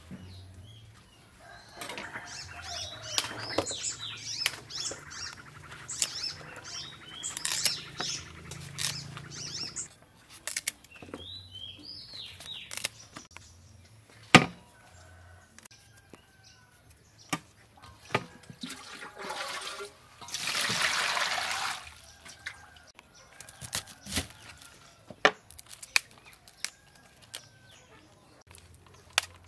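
Chinese broccoli being prepared by hand: leaves rustling and stalks snapping with sharp clicks as the greens are torn and dropped into a steel bowl. About twenty seconds in comes a burst of water pouring for about two seconds. Birds chirp in the background.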